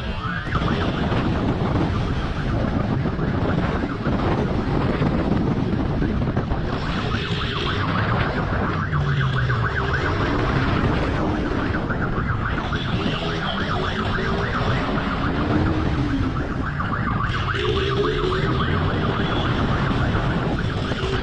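Motorcycle at speed, with a steady rush of wind on the bike-mounted microphone over the engine, and a siren wailing on and off above it.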